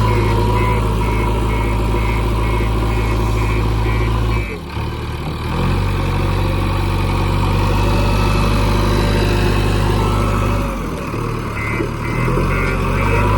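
JCB 3DX backhoe loader's diesel engine running steadily while it works, its note briefly dropping twice, about four and a half seconds and eleven seconds in. A rapid high-pitched beeping repeats over it at the start and again near the end.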